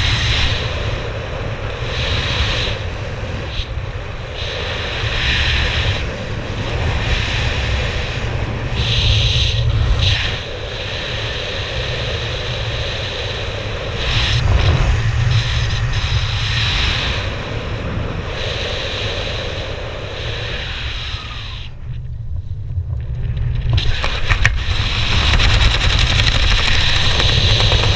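Wind rushing over the microphone of a skydiver's camera, a steady loud noise, first in freefall and then under the opened parachute. The hiss drops out for about two seconds roughly 22 seconds in.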